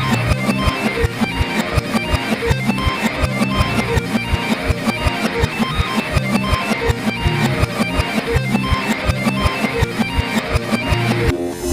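Music: a fast, even run of plucked MIDI pizzicato string notes, about five a second, from a dark Android notification tone played in reverse.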